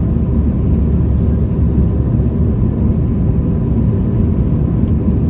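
Jet airliner heard from inside the passenger cabin: a steady, loud low rumble of engines and airflow with a faint steady hum, running without change.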